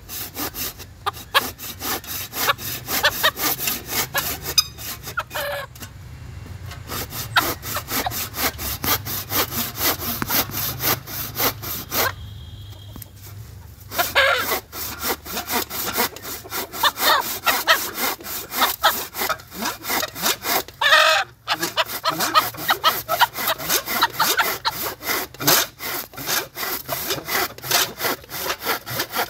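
Fast, continuous rhythmic rasping, several strokes a second, with a couple of brief breaks; a bantam rooster calls over it.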